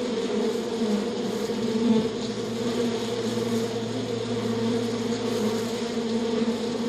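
Flying insect buzzing: a steady, continuous wingbeat hum with a slight swell about two seconds in.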